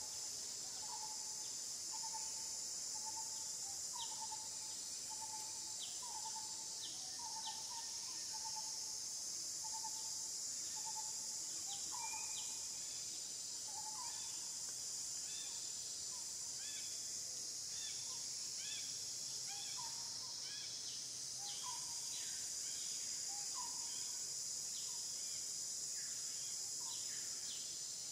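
Steady high-pitched drone of insects, with birds calling over it: a short rising note repeated about once a second, and scattered higher chirps that grow busier in the second half.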